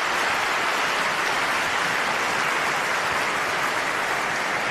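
A large audience applauding steadily in a big hall, a dense even patter of many hands clapping.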